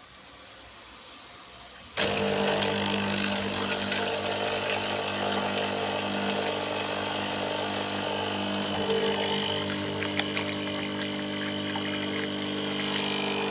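Coffee machine switched on about two seconds in: its pump starts abruptly with a loud, steady buzzing hum and keeps running. The machine is being run after its worn O-ring seals were replaced, to check for the water leak.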